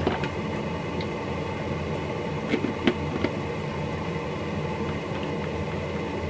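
A small plastic food-chopper bowl, closed with a little hot water inside, is shaken to rinse it out, giving a few light plastic knocks between about two and a half and three seconds in. A steady low hum runs underneath.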